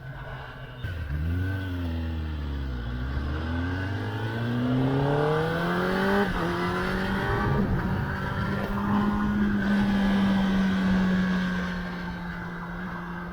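2021 Kawasaki ZX-10R's inline-four engine under way: the revs rise and fall briefly, then climb steadily in one gear, drop sharply with an upshift about six seconds in, and hold nearly steady after, easing slightly near the end.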